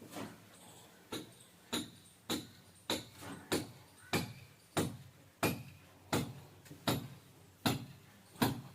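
A rhythmic series of sharp knocks, about thirteen, roughly one every two-thirds of a second, each followed by a short ringing tail.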